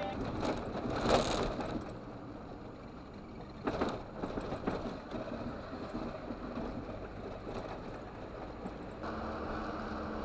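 Engine and road noise inside a truck cab, picked up by a dashcam, with two louder knocks. Near the end it changes to a steadier engine hum.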